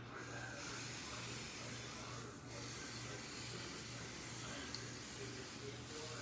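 Aerosol can of hair oil spray hissing as it is sprayed onto hair, in two long bursts with a short break about two and a half seconds in.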